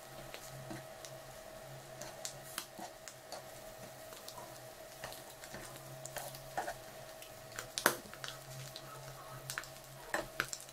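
Boiled egg slices sizzling and crackling in oil in a nonstick frying pan, with a steel spoon scraping and clicking against the pan as the slices are turned over; the sharpest click comes about 8 seconds in. A steady hum runs underneath.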